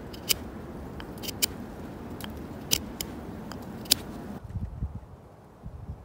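Knife whittling a small stick of wood: a sharp click as each cut or shaving snaps off, about seven in the first four seconds. The carving sounds stop about four seconds in, leaving a few soft knocks.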